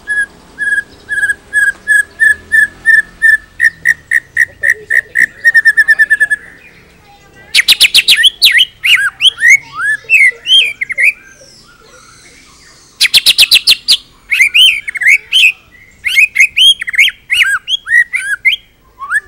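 White-rumped shama singing: a run of repeated notes on one pitch that speeds up into a fast trill, then two dry rattles, each followed by quick, varied whistled phrases.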